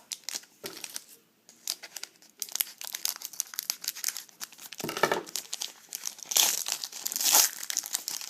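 Trading-card pack wrapper crinkling and tearing as it is opened by hand, with the cards handled; the crinkling is loudest about six to seven and a half seconds in.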